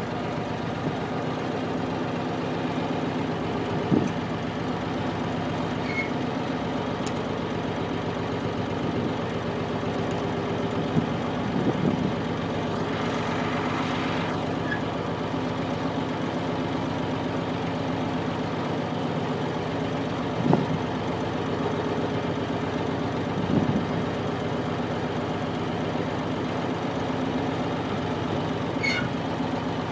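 Narrowboat's diesel engine running steadily at low speed, with a few short knocks here and there.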